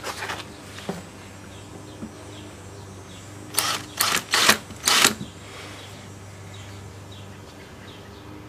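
Cordless drill with a hole saw spun in four short bursts against a tapered wood plug in a fibreglass hull, a little past the middle.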